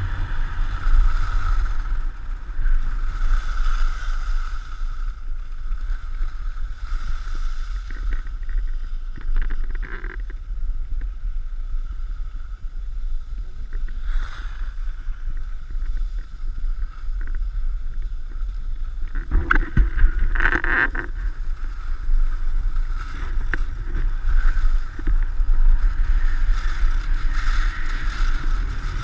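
Wind buffeting the action camera's microphone over the hiss and scrape of skis sliding on packed snow during a downhill run, with a louder scraping burst about two-thirds of the way through.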